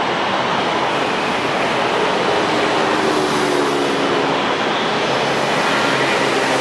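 Jet engines of a taxiing Dragonair Airbus A330 running, a steady rushing noise with a low hum. A faint engine whine joins about two seconds in and fades near the end.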